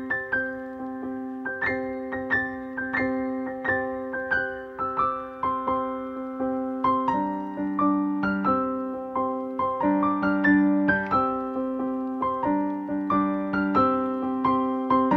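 Background piano music: a gentle melody in a steady stream of notes over sustained chords, the harmony shifting about halfway through.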